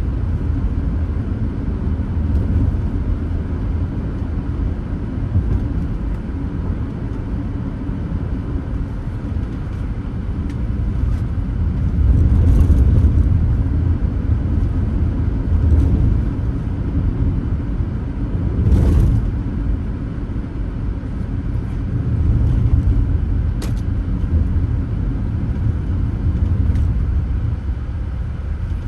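A car driving along a road: a steady low rumble of tyres and engine, with a few brief swells of noise, the clearest about 19 seconds in.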